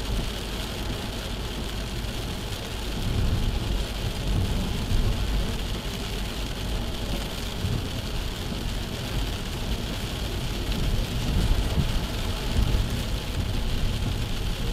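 A car driving on a rain-soaked road, heard from inside the cabin through a dashcam's microphone: a steady hiss of rain and tyre spray over the engine and road noise. Deep rumbles swell and fade several times.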